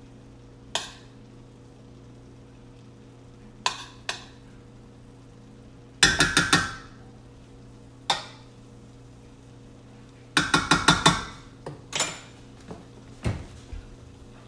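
Metal serving spoon clinking against a stainless steel sauté pan while food is dished out: a few single knocks and two quick runs of about six taps, about six seconds in and again around ten seconds in. A steady low hum runs underneath.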